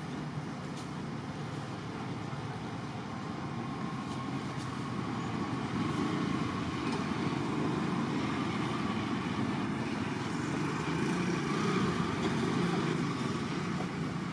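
Steady low outdoor rumble, a little louder from about five seconds in.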